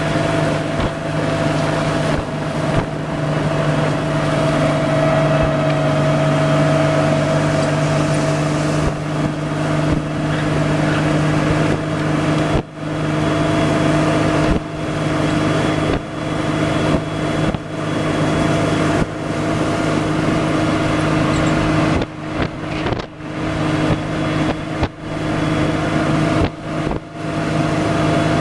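A small motorboat's engine running steadily at cruising speed, a constant droning hum with water and air noise over it. In the second half the sound dips briefly several times.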